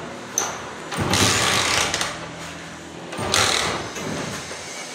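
Small Honda motorcycle engine running, with two louder stretches, about a second in and again past three seconds.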